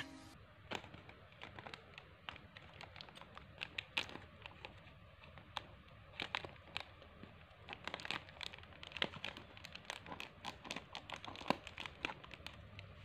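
Thin plastic air-bubble packaging crinkling faintly as it is handled and cut open with scissors, with many scattered sharp crackles and snips.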